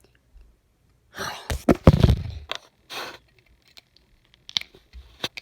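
A person lets out a loud, breathy huff of breath about a second in, then a shorter breath, followed by scattered small clicks of LEGO plastic being handled.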